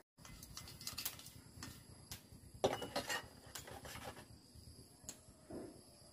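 Irregular scraping, rubbing and light clicks of a finned chainsaw cylinder being scrubbed clean by hand in a cut-open plastic jug, with a louder cluster of scrapes a little under three seconds in.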